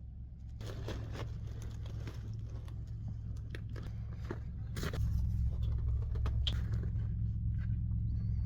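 Steady low rumble of a vehicle running, with irregular scraping, crunching and clicking noises on top from about half a second in, growing a little louder about halfway through.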